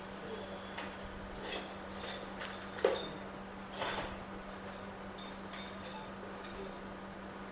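Scattered light clicks and clatter of things being handled on an electrical test bench, the sharpest about three and four seconds in, over a steady low electrical hum.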